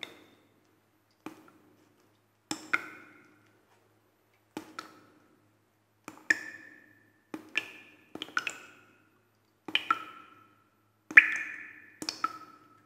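Water drops falling into water one at a time at irregular intervals, each a short tap followed by a ringing plink at a different pitch. The loudest drop comes near the end.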